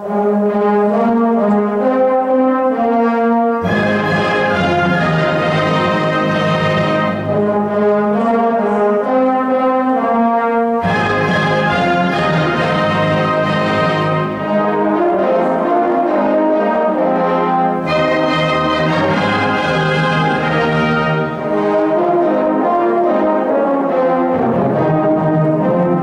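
Concert wind band with prominent brass, horns and trombones, entering together all at once after a silence and playing sustained, full chords. The low brass drops out and comes back in twice.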